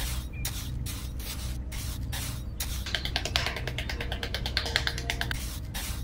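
Small metal hand trowel scraping and scooping loose sand in repeated short scratchy strokes, which come faster from about halfway through.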